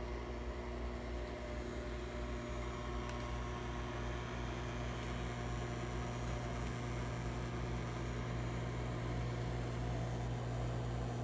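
Kodak Carousel 4600 slide projector running with its lamp on, its cooling fan giving a steady hum.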